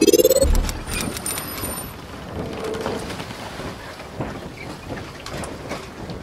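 Logo intro sound effects: a rising sweep that ends about half a second in with a deep boom, then a steady hiss dotted with scattered clicks and faint high twinkles.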